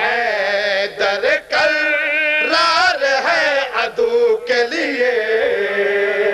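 A man's voice chanting a line of Urdu devotional verse in a melodic sung style, amplified through a microphone, with long held notes that waver and bend in pitch.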